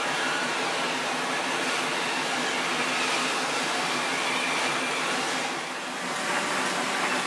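Motor-driven plastic grinding machines running steadily with a continuous whir, dipping briefly just before six seconds in.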